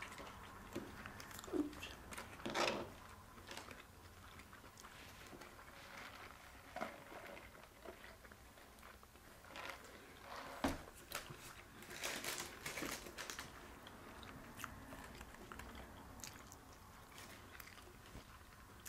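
Eating sounds: scattered bites, chewing and soft crunches of fried turkey and curly fries, faint and intermittent.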